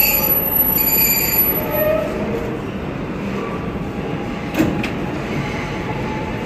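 New York City subway train of R160 cars standing at the platform after braking in. High wheel squeal dies away in the first second or two, then a steady rumble and hiss, with one short knock about two-thirds of the way through.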